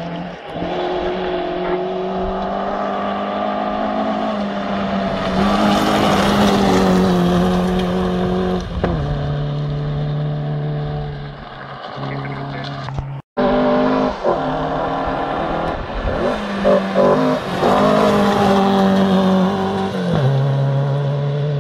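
Rally car on a gravel stage approaching at full throttle, its engine note climbing and then dropping back at each gear change. The sound breaks off for an instant about 13 seconds in, then another full-throttle run follows with more gear changes.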